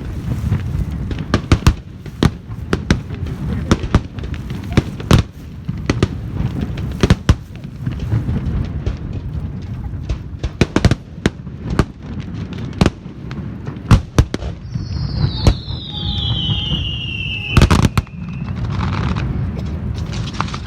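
Fireworks going off in a rapid string of sharp bangs and crackles over a low rumble. In the second half, a whistle falls steadily in pitch for about three seconds, and a cluster of the loudest bangs follows.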